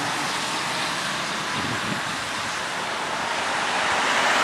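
Road traffic: cars driving past with steady tyre and engine noise, one passing close near the end.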